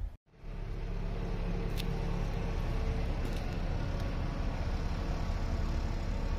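Air compressor running steadily with a low, even drone, starting just after a brief dropout near the start.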